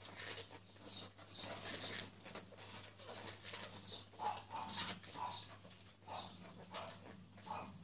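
A litter of shih tzu puppies squeaking while they nurse: many short, high squeaks following one another, over a low steady hum.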